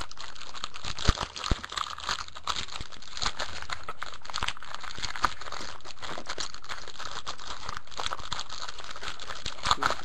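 Plastic wrapping crinkling and crackling steadily as a trading-card pack is opened and handled, with many small sharp clicks.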